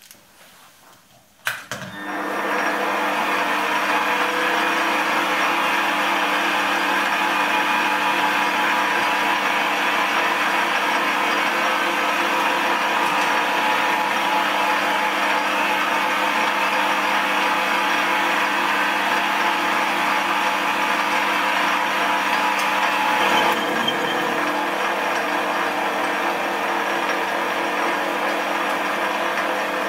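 Metal lathe starting up about two seconds in and then running steadily, a hum with several steady tones, while a centre drill in the tailstock chuck bores into the end of a square metal bar spinning in a four-jaw chuck.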